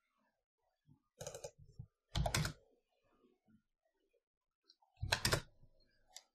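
Computer keyboard keystrokes in three short clusters, about a second in, at two seconds and near the end, as a number is typed into a field.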